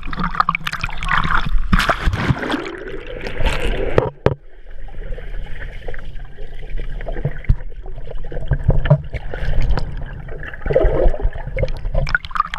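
Water splashing and trickling close by, with scattered knocks. It is busiest in the first four seconds, then settles into a steadier hiss of moving water.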